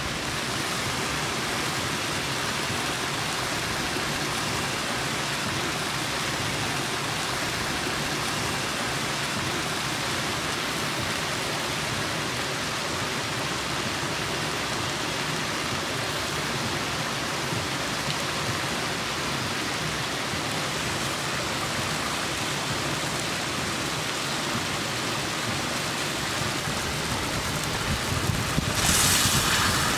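A thick meat stew simmering in a pot over a wood fire, giving a steady bubbling hiss. A brief louder, higher hiss comes near the end.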